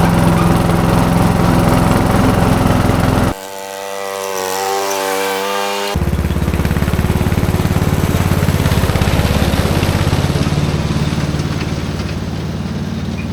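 Lawn mower engine running steadily. The sound changes abruptly about three seconds in, to a steady whine for a few seconds, and again about six seconds in, to a deeper, pulsing engine note.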